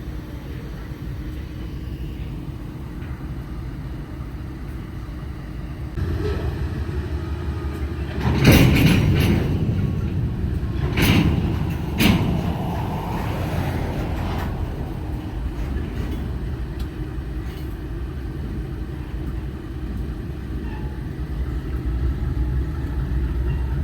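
Steady low rumble of a heavy vehicle that grows louder about six seconds in, with a cluster of loud clanks and bangs between about eight and twelve seconds in.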